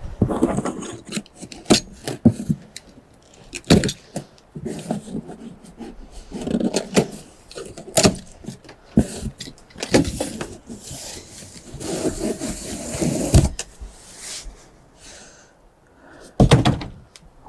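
Packing tape being ripped off a cardboard box and the cardboard lid worked loose and lifted off: an uneven run of rips, scrapes and sharp knocks.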